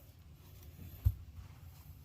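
A single dull knock about a second in, over a low steady hum, as something is bumped during plumbing work in a small room.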